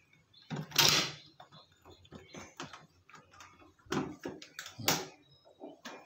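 Metal clicks and knocks from the two halves of a stainless-steel Europa cylindrical door knob lock being fitted together through the door and its latch, with a loud knock about a second in, two more around four and five seconds in, and lighter ticks between.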